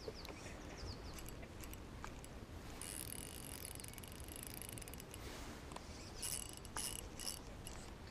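Faint whirring of a Shimano Complex XR 2500 spinning reel as its handle is cranked in two short spurts, with a few bird chirps near the start.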